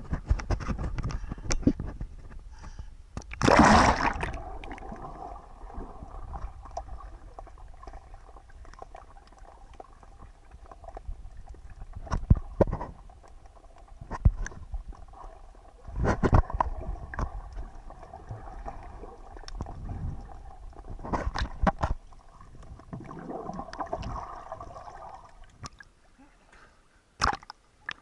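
Sea water heard through a waterproof camera housing taken on a breath-hold dive: a splash about four seconds in as it plunges under, then muffled underwater sloshing with scattered knocks and thuds against the housing, and splashing again near the end as it breaks the surface.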